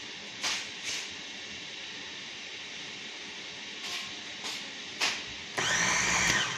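Emjoi electric food chopper's motor run in one short pulse near the end, rising in pitch as it spins up, blending chocolate sauce in its bowl. Before it, a few light knocks over a steady hiss.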